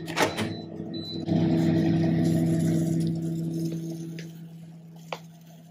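Teka microwave oven being started: a button press with a short electronic beep about a second in, then the oven running with a steady low hum that fades away near the end.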